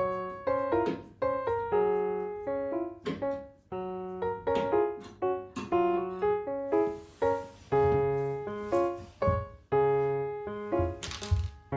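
Solo piano music: a steady run of struck notes and chords, each ringing and dying away.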